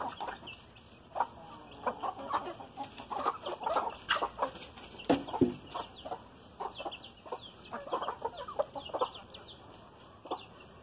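Chickens clucking in short, irregular notes, with one louder, lower call about five seconds in and thin high chirps over the top.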